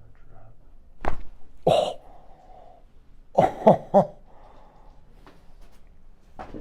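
Chiropractic neck adjustment: a sharp crack of the neck joints about a second in, followed by the patient's short vocal reactions, a breathy burst and then three quick voiced sounds. Another click comes near the end.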